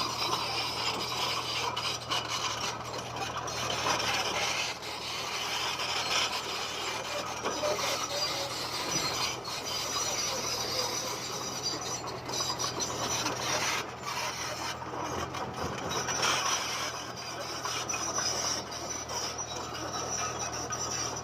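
Komatsu bulldozer at work pushing stone: a steady engine hum under continuous grinding and scraping of rock against the blade and tracks.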